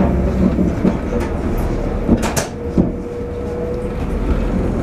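Inside a diesel passenger train on the move: a steady low rumble of the running train, with a few sharp knocks about two seconds in and a thin steady tone for a second or so after them.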